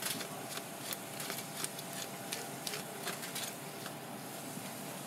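Metal fish scaler scraping the large scales off a whole blue fish: sharp, irregular clicks, a few each second, over a steady background hiss.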